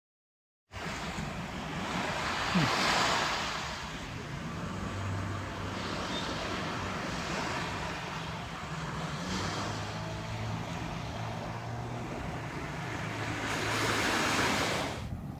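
Small waves washing onto a sandy beach, swelling twice as a wave comes in, with some wind on the microphone and a faint low hum beneath. It begins just under a second in.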